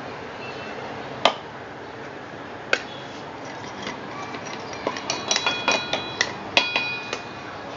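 Metal utensils clinking against a steel vessel: two single clinks, then a quick run of clinks with a brief metallic ring during the last two seconds or so, as the powdered sugar and cardamom are handled.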